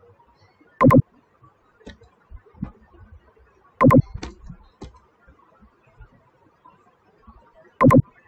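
Computer keyboard and mouse clicks while code is copied and pasted: scattered light clicks, with three much louder short knocks about four seconds apart.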